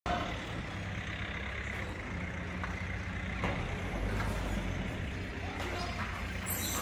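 A heavy vehicle's engine running steadily, a low rumble, with a few short knocks.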